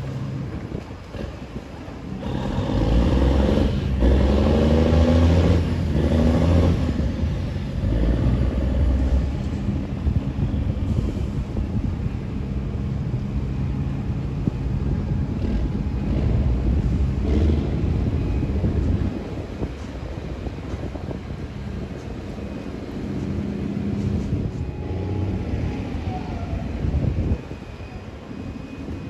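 Tugboat diesel engine running under load, picking up a few seconds in with its pitch rising, then easing back to a lower hum about two-thirds of the way through.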